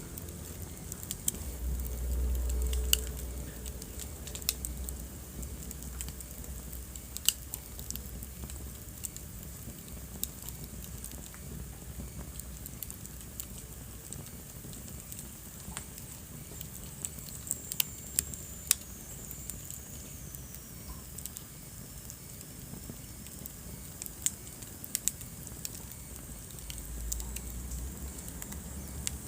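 Wood fire burning in a fireplace: irregular sharp crackles and pops over a low rumble that swells briefly about two seconds in and again near the end. A faint high whistle slides down in pitch about two-thirds of the way through.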